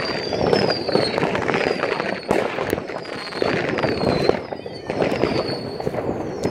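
Many New Year's Eve fireworks going off at once: a dense, continuous crackle of firecrackers and rocket bursts, with high whistles falling in pitch about once a second.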